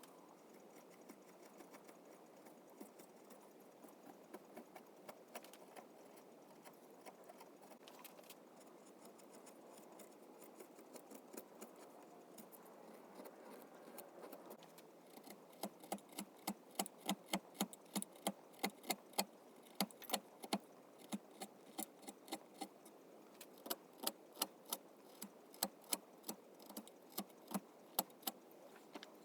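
Hand carving tools working English cherry wood: soft scraping cuts for about half the time, then a run of sharp taps, roughly two a second.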